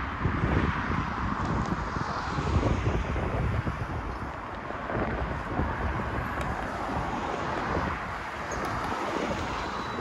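Steady outdoor city background noise: a continuous low rumble with hiss that swells and fades slowly.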